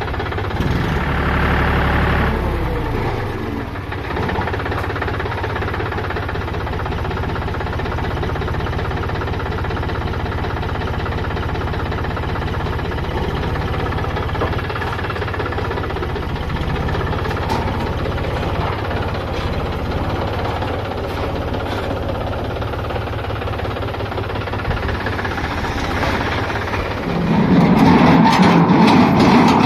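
JCB backhoe loader's diesel engine running under working load, revving up briefly about a second in and falling back, then rising again near the end.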